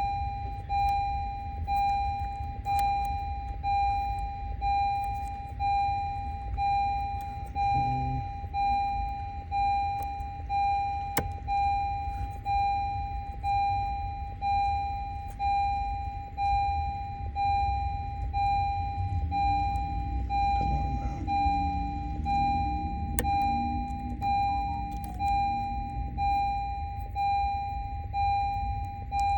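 2020 Honda Accord's warning chime, one high electronic tone repeating evenly over and over without stopping, the car's door-open or key reminder sounding while its lock is being worked.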